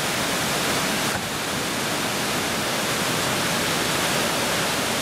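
Rocky mountain river rushing through rapids: a steady, loud rush of water over stones.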